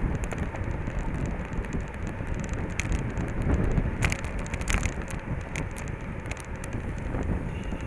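Wind rushing over the microphone of a road bike's handlebar-mounted camera while riding in a race bunch, over a low rumble of tyres on the road. Scattered sharp clicks and rattles come through, most of them from about three to six seconds in.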